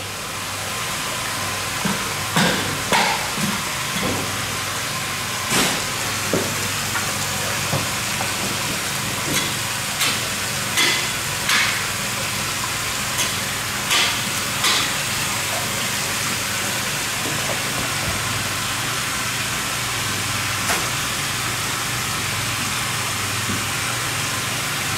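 Irregular sharp knocks from a knife and metal rod working on a whole bluefin tuna carcass on a wooden board: about a dozen through the first half, then one more later. Under them runs a steady hiss with a low hum.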